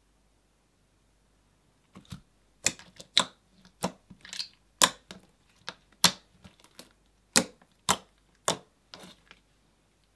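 Thick slime being pressed and folded by hand, giving a string of sharp, wet pops and clicks, about a dozen of them, starting about two seconds in.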